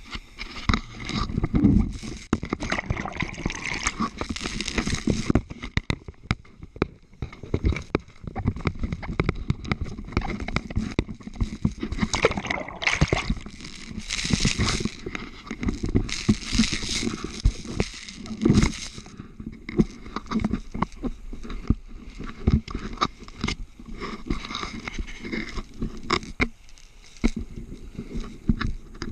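Scuba diver breathing underwater through a regulator: the hiss of each inhalation alternates with bubbly, gurgling exhalations, in repeated slow breaths.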